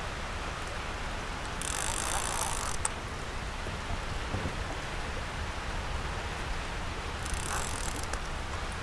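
Conventional level-wind fishing reel clicking and buzzing in two bursts of about a second each as a hooked catfish is reeled in, over a steady hiss of rain and flowing creek water.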